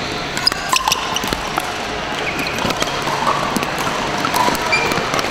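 Scattered sharp pocks of pickleball paddles striking hard plastic balls from several courts at once, mixed with short squeaks of sneakers on the hardwood floor.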